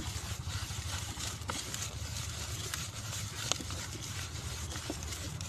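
A hand stirring and crumbling damp granular fishing bait in a plastic bowl: faint gritty rustling with a few small clicks, over a steady low rumble.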